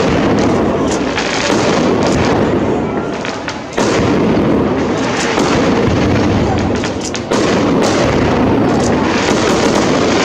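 Firework display: aerial shells bursting overhead in a dense, continuous run of bangs and crackles. Two sharp new bursts stand out, about four and about seven seconds in.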